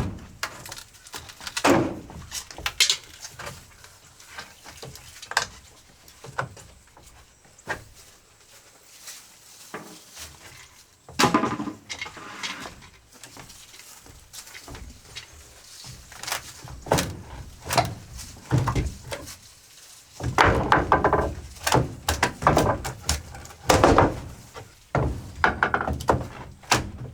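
Wooden porch deck boards being worked loose by hand: irregular knocks and thuds of wood on wood, with busier stretches of clattering about eleven seconds in and again from about twenty seconds in.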